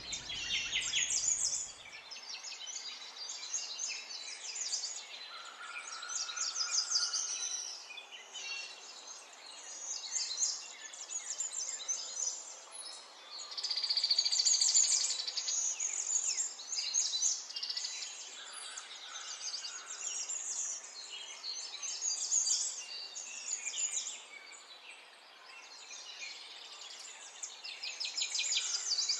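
Birds chirping and singing, a steady run of quick, high trills and chirps.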